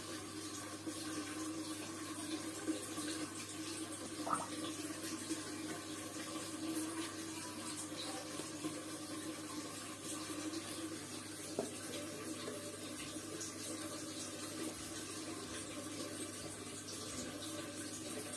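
Water trickling steadily from a plastic tube into the cut-off plastic-bottle basin of a homemade bottle fountain.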